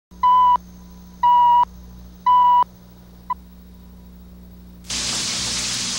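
Three short, loud, identical cue beeps on a broadcast videotape leader, about one a second, then a faint blip, over a low hum. About five seconds in, frying food starts sizzling.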